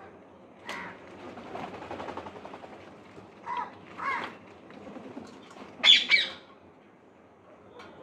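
Parrots calling: a handful of short, harsh screeches, the loudest a pair about six seconds in, with a scratchy stretch of chatter in the first few seconds.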